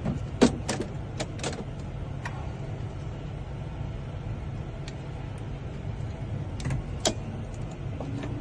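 Steady low rumble of a running vehicle, with scattered sharp clicks and taps of a car key and tools being handled, the sharpest about half a second in and near the end.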